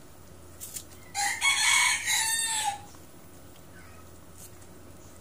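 A rooster crowing once, about a second in: a single call about a second and a half long that falls in pitch at the end.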